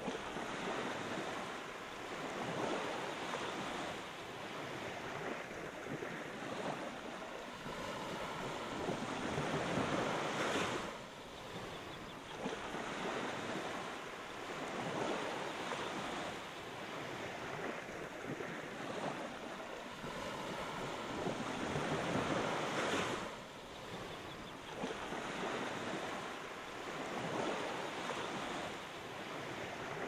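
Small waves breaking and washing up a sandy beach: a steady surf hiss that swells and eases every few seconds, with louder breaks about a third of the way through and again about three-quarters through.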